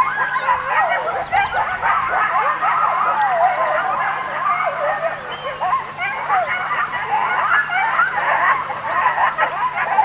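A pack of coyotes yipping and howling together, many wavering, overlapping calls at once, running on without a break.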